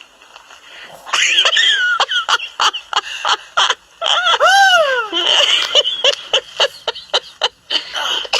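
A woman laughing and squealing in short rapid bursts, with high rising-and-falling cries about a second in and again around the middle.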